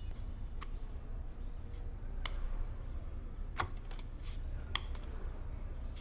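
Quiet room tone with a steady low hum, broken by about five faint, sharp clicks spread through it.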